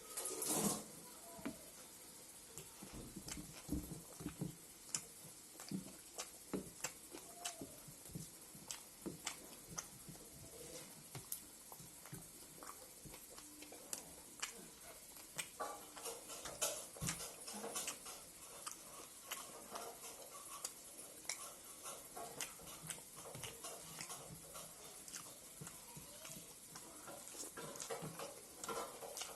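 Close-up eating sounds: chewing and lip smacking, with many irregular small clicks and wet mouth noises.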